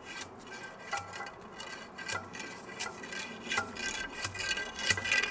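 Wooden rammer scraping and knocking inside the metal barrel of a replica carronade cannon as it is rammed down to load it: repeated rubbing strokes every half second or so with a faint metallic ring, growing louder toward the end.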